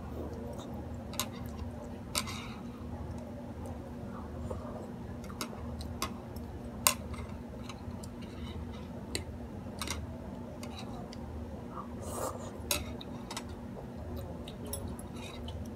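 Metal chopsticks and a fork clicking and scraping against a ceramic plate while eating noodles, in scattered sharp clinks, the loudest about halfway through, over a steady low hum.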